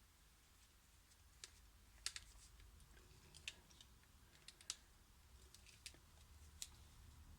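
Faint, irregular light clicks and taps, about eight in all, of small smartphone parts and tools being handled during reassembly, over a low hum.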